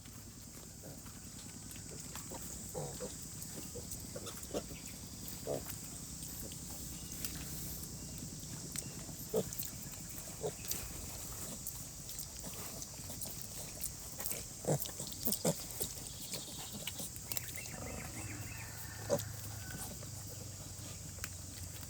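A sow and piglets giving short grunts every second or two over a steady hiss of rain.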